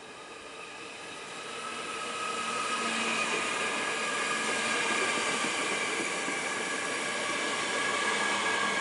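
ÖBB Cityjet (Siemens Desiro ML) electric multiple unit pulling into the platform. It grows louder over the first few seconds as it approaches, then runs past steadily, with a high electric whine that falls slightly in pitch as the train slows.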